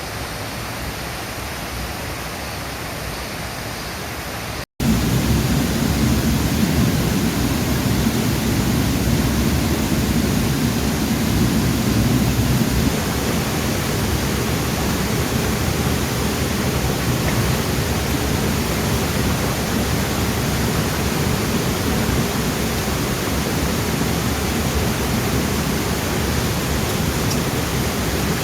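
Steady rushing noise of running water. It cuts out for an instant about five seconds in and comes back louder and deeper.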